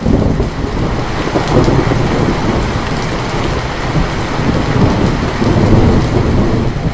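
Rain falling steadily as a loud roll of thunder breaks in suddenly and keeps rumbling.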